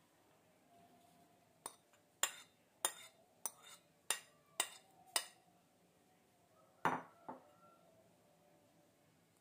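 Ceramic bowl clinking as it is tapped over a frying pan to knock out the last of the egg and potato mixture: about seven sharp knocks, a little more than one a second apart, then a louder knock followed by a small one near the end.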